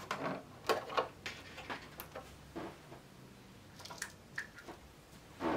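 Light clicks and taps from hands handling and opening the landing gear door of a large model plane's fuselage, the door not yet servo-driven, with a louder brief noise near the end.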